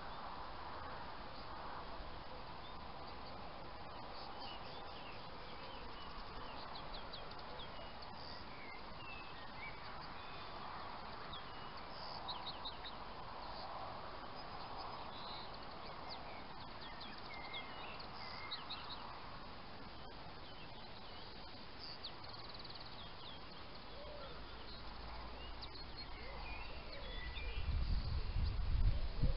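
Small birds chirping and singing over steady background noise. A low rumble swells briefly near the end.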